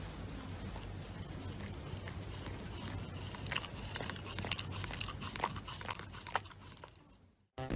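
Shiba Inu chewing and biting a paper face mask: scattered small clicks and crinkles of mouth and paper, thickest in the second half, over a steady low hum, fading out near the end.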